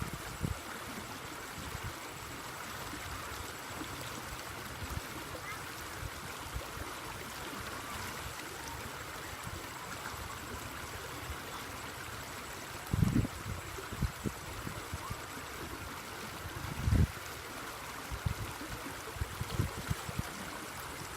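Steady rush of flowing water, with a few low thumps, two of them loud, in the second half.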